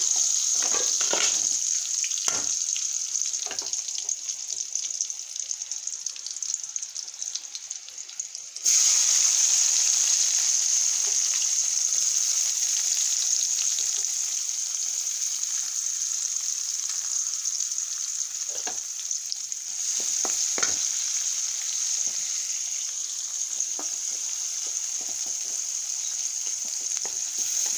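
Hot oil sizzling in an aluminium wok, first around curry leaves and chillies and dying down, then jumping suddenly louder about nine seconds in to a steady sizzle with sliced bitter gourd, onion and coconut frying in it. A wooden spatula stirs with a few soft knocks.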